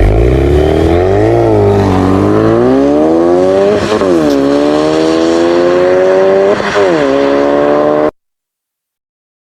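Ferrari Enzo V12 engine accelerating hard, its pitch climbing through the revs and dropping back sharply at each of several gear changes. The sound cuts off suddenly about eight seconds in.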